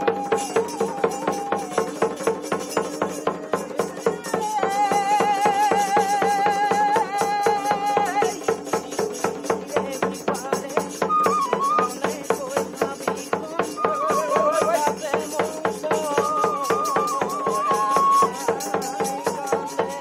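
Assamese folk dance music played live: a dhol barrel drum beaten in a fast, even rhythm with small hand cymbals clashing on the beat, under a high, wavering melody on a pipe.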